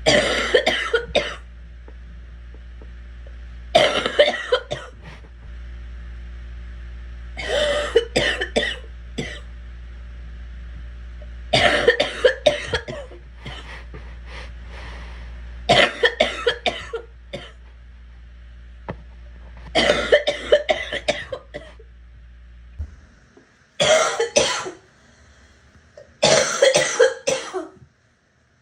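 A girl coughing in repeated fits of several quick coughs each, eight fits about four seconds apart. A steady low hum sits behind them and stops abruptly about three-quarters of the way through.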